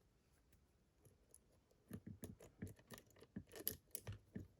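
Faint, irregular metal clicks and scrapes of lock picking tools working in a challenge lock's keyway, several a second, starting about two seconds in.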